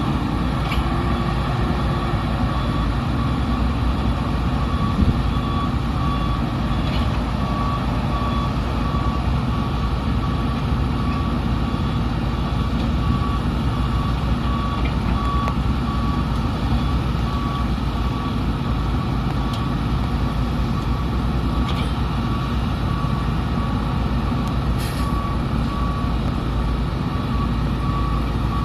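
A reversing alarm beeping steadily about once a second, over the steady running of heavy diesel engines from the excavator and dump trucks at the loading site. A few faint knocks come through now and then.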